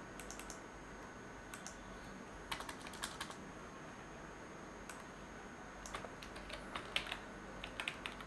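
Computer keyboard keystrokes in several short bursts of a few quick taps, with pauses between.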